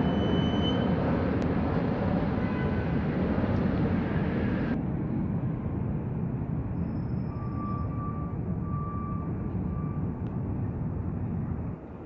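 Steady low rumble of outdoor city background noise, with a few faint high tones in the second half; it drops suddenly shortly before the end.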